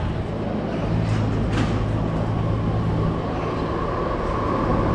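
Electric train running through the station: a steady low hum and rumble, with a high steady whine that grows stronger after about a second. A short sharp hiss or click about a second and a half in.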